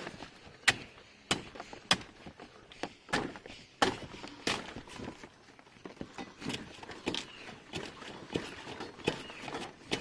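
Dead leaves being stripped from a banana plant: a series of irregular sharp snaps and knocks, roughly one every half second to second, with rustling of leaves between them.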